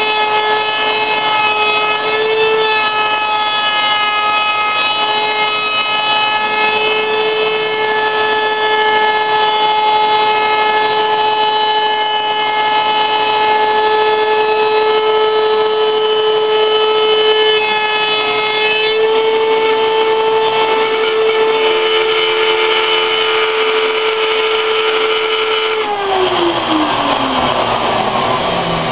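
Electric router in a homemade router table running at full speed with a steady high whine that shifts slightly in pitch. About 26 seconds in it is switched off and winds down, its pitch falling steadily.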